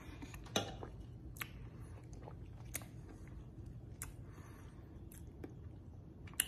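Soft mouth sounds of someone tasting a drink: a handful of scattered lip smacks and tongue clicks over a faint steady low room hum.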